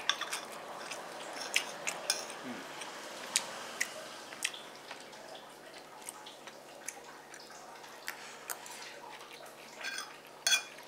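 A metal spoon clinks sharply on a ceramic plate as it scoops fried rice, then quiet eating sounds: scattered soft, wet mouth clicks while chewing, with a few more clicks near the end.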